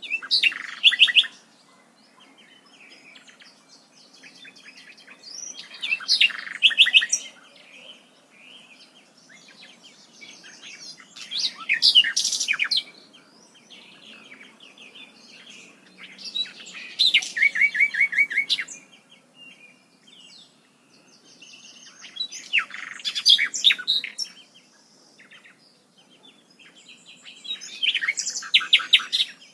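A songbird singing a phrase of rapid repeated notes about every five to six seconds, six phrases in all.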